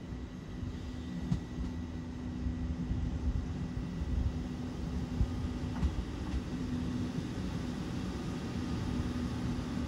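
JR Central KiHa 75 diesel railcar approaching and drawing into a station: a low diesel rumble with a steady hum that grows slowly louder as the train nears.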